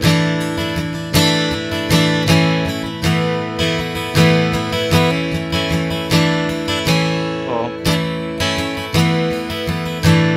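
Guitar strummed in a steady pattern, moving from an open A chord through A sus 4 and A sus 2 and back to A, the upper notes changing as a finger is added and lifted.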